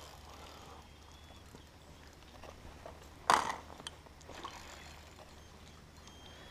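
A landing net's pole knocking down onto rocky gravel about halfway through, one sharp clatter followed by a few lighter clicks against a quiet background.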